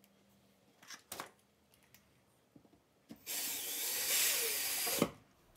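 Power drill driving a screw into the wall for about two seconds, stopping abruptly with a knock; a couple of short knocks about a second in.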